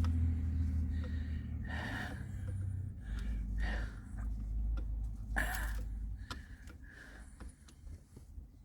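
A man's short, effortful breaths and gasps, about three of them, as he strains to turn a hand screwdriver with a Torx bit. Under them runs a low steady rumble that drops lower about three seconds in and fades out.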